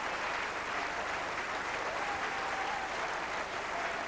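Tennis stadium crowd applauding steadily: a dense, even clapping from many hands.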